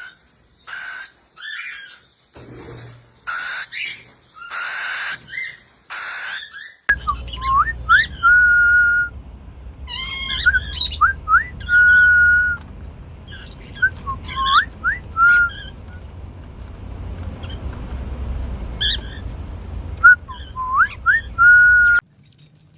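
Pet parrot calling in short, harsh screeches, then whistling a short tune several times over: a few quick upward slides ending on a long held note.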